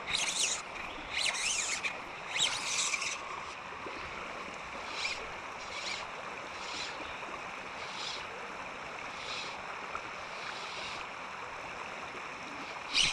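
Steady rush of flowing river water, with several short, high-pitched bursts over it: three louder ones in the first three seconds, then fainter ones about every second.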